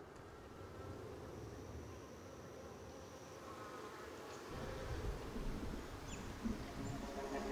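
Faint buzzing like a flying insect, with a low rumble joining about halfway through.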